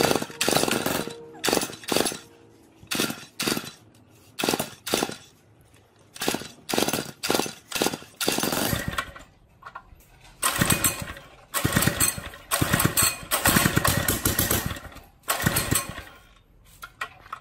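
Repeated pull-starting of a small Rato four-stroke engine on a gasoline water pump: more than a dozen short bursts of cranking from the recoil starter, with the engine failing to start. From about ten seconds in, the bursts come longer and closer together.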